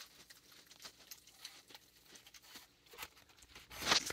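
Faint scattered crunching and rustling of raccoons and a baby skunk eating peanuts and seed from dishes on a wooden deck, with a louder rustle near the end.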